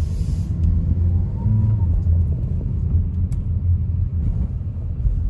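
Steady low rumble of a car being driven, heard from inside the cabin: engine and road noise with a few faint ticks.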